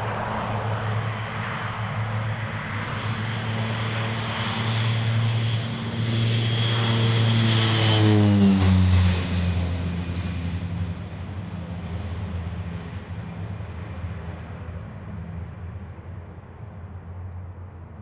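Twin-engine turboprop at takeoff power: the propeller drone and a high turbine whine grow louder during the takeoff roll. The drone drops sharply in pitch as the aircraft passes about eight seconds in, then fades as it climbs away.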